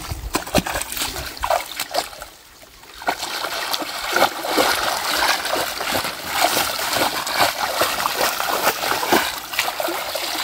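Splashing and sloshing of water and mud as a mesh scoop net is swept through a shallow flooded field and lifted out full of muck. There is a brief lull about two seconds in, then the splashing runs on steadily.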